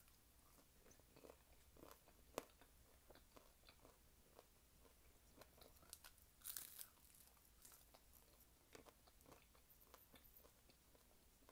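Close-miked crunching and chewing of a crispy fried taquito, with a sharp crunchy bite about two and a half seconds in and a louder one about six and a half seconds in, between soft chewing.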